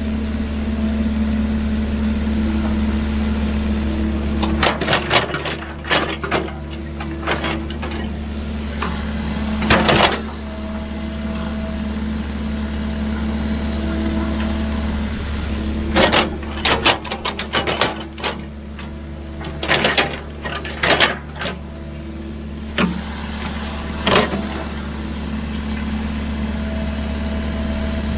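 Excavator's diesel engine running steadily with a hydraulic whine that comes and goes, broken by several clusters of sharp metallic clanks and knocks.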